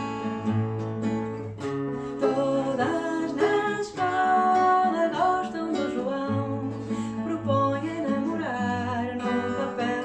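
Background music: a pop song carried by strummed acoustic guitar with a steady beat.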